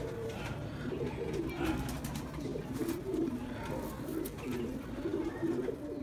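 Domestic pigeon cooing over and over, a male's courtship coo, with low rolling coos coming about every two-thirds of a second.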